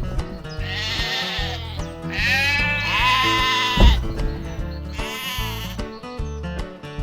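Background music with a steady beat, with wavering, bleat-like calls laid over it about a second in, from about two to four seconds in, and again about five seconds in.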